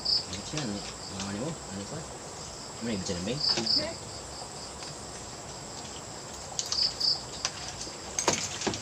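Insects chirping: a steady high drone with a short double chirp repeating about every three and a half seconds.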